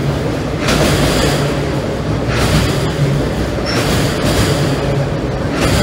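Freight train's autorack cars rolling across a steel deck-girder railroad trestle overhead: a loud, steady rumble and rattle of wheels on the bridge, swelling and easing every second or two.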